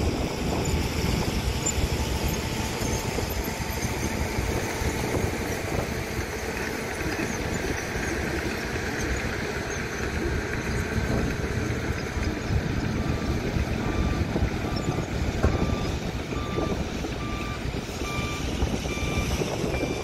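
Diesel dump truck engines running with a steady low rumble. About two-thirds of the way in, a truck's reversing alarm starts beeping evenly, about one beep every 0.7 seconds, and carries on to the end.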